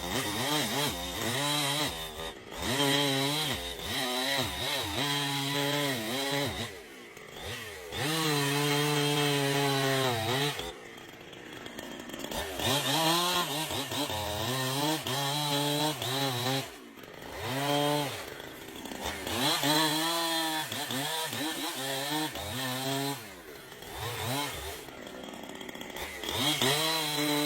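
Chainsaw cutting wood: the engine revs hard with its pitch sagging and recovering under load, dropping back several times between runs, then winding up again.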